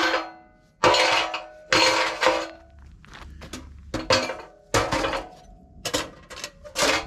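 Sheet-steel nesting stovepipe sections clanking and scraping against each other and the steel camp wood stove as they are pushed into its firebox: a run of sharp metal knocks, each with a short ring.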